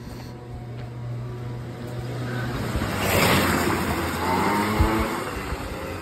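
A motor vehicle passing by: its noise swells to a peak about three seconds in, then fades away.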